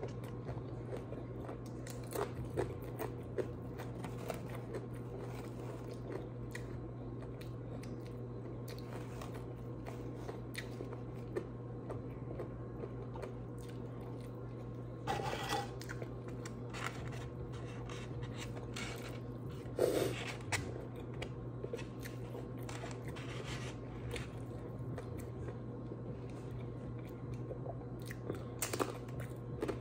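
Tortilla chips being bitten and chewed close to a clip-on microphone: scattered crunches and mouth sounds, loudest about 15 and 20 seconds in, over a steady low hum.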